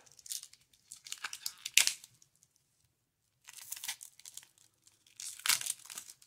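Clear protective plastic film being peeled off a stainless steel wristwatch, rustling and crackling in three spells. The first spell is the longest and ends in a sharp snap, and there is a quiet gap of about a second and a half midway.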